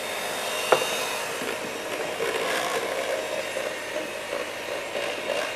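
Handheld electric mixer running steadily, its beaters whipping mascarpone and eggs in a glass bowl, with one sharp click near the start.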